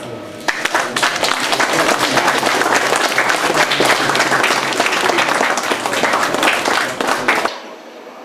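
Audience applauding, starting about half a second in and cutting off suddenly near the end.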